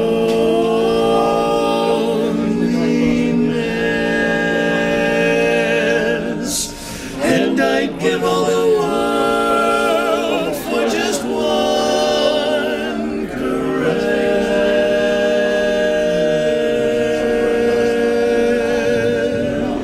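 Four-voice male barbershop quartet singing a cappella in close harmony, holding long sustained chords, with a short break and a hissed 's' about seven seconds in.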